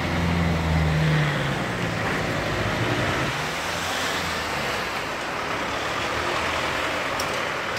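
Street traffic: a vehicle engine humming low that fades out over the first second or two, then a steady wash of road noise from passing cars, swelling briefly about four seconds in.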